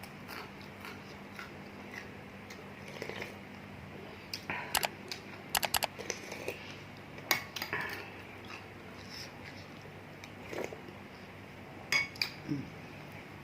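Eating bakso meatball soup: a spoon and fork clink against the bowl in several short clusters of sharp taps, with chewing between them.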